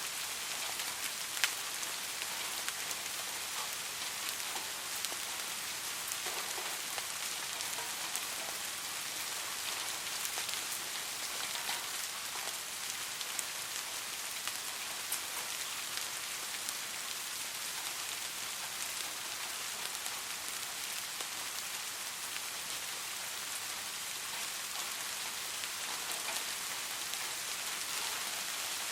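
Soft rain falling steadily: an even hiss with many small drop ticks scattered through it, and one sharper tick about a second and a half in.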